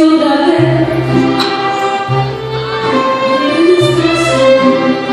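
Live mariachi band playing an instrumental passage: violins carry the melody over strummed guitars, with a low bass note about every second and a half.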